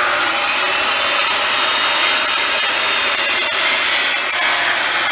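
Corded circular saw running steadily as its blade crosscuts a wooden framing board.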